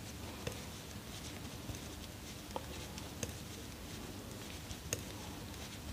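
Faint, scattered clicks of metal knitting needles with soft rustling of wool yarn as stitches are knitted, over a low steady background hum.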